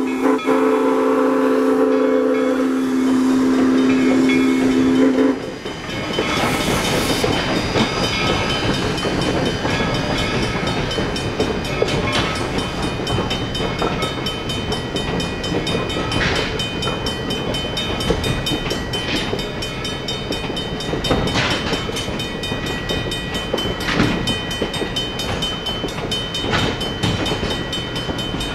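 A steam locomotive's chime whistle holds a long blast of several notes at once and cuts off about five seconds in. Passenger coaches of the steam train then roll past, with sharp clicks of wheels over rail joints every two to three seconds, while a grade-crossing bell keeps ringing.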